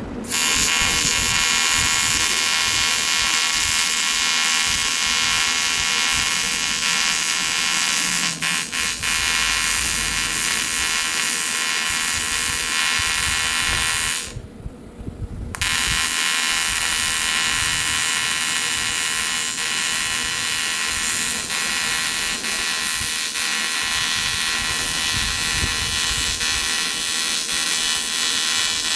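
AC TIG welding arc on aluminium buzzing steadily. The arc breaks off about halfway through and is struck again a second and a half later.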